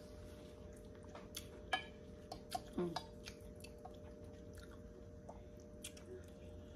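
A person chewing a mouthful of chitlins, with scattered small wet mouth clicks and a short hum about three seconds in, over a faint steady background hum.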